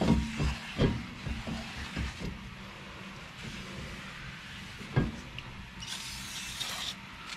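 A few sharp knocks, the loudest at the start, then a burst of aerosol brake cleaner hissing for about a second near the end, sprayed onto a new brake rotor to strip its factory anti-rust coating.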